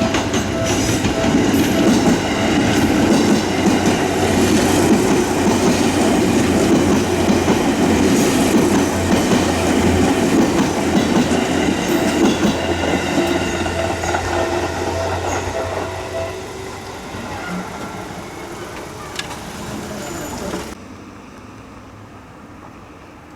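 Seibu Railway electric train passing over a level crossing, wheels clattering on the rails with a steady low hum, loud for about sixteen seconds and then fading as it moves away. The sound drops off abruptly about twenty-one seconds in.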